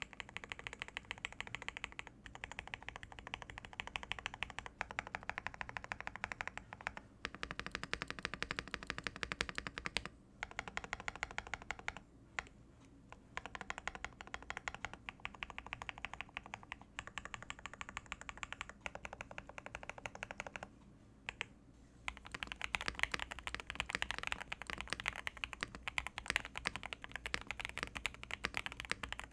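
Fast typing on custom mechanical keyboards: steady rapid key clacks in several stretches, one board after another, with the sound changing at each switch. There are brief pauses about ten, twelve and twenty-one seconds in. From about twenty-two seconds in, the typing is brighter and louder.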